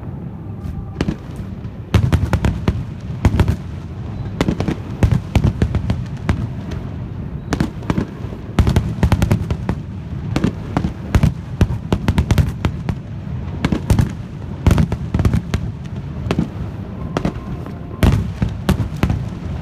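Fireworks display with shells bursting in quick, dense volleys of sharp bangs over a steady low rumble. The barrage starts about two seconds in and keeps going.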